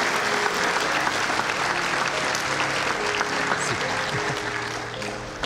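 Wedding guests applauding after the couple's kiss, with music playing underneath; the clapping thins a little toward the end.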